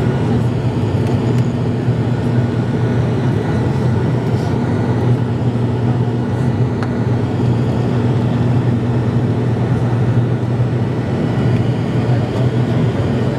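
Turboprop airliner's engines and propellers at climb power just after takeoff, heard inside the cabin as a loud, steady drone with a low hum.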